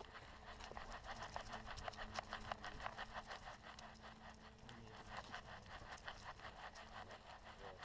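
Dog panting rapidly and rhythmically close to the microphone.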